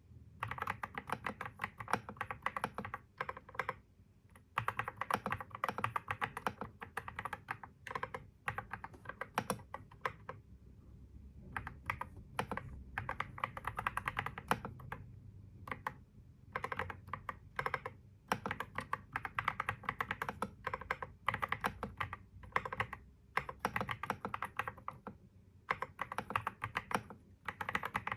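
Computer keyboard being typed on in fast runs of clicking keystrokes, broken by brief pauses.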